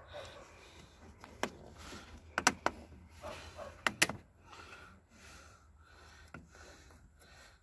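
Several sharp knocks from handling a plastic engine-oil jug over the engine, the loudest about two and a half and four seconds in, then a quieter steady sound of fresh oil pouring from the jug through a funnel into the oil filler.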